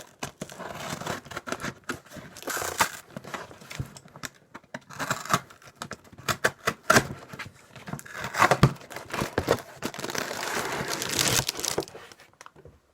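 Cardboard delivery box and packaging being pulled open and handled: irregular crinkling, tearing and rustling with sharp cardboard clicks, thinning out near the end.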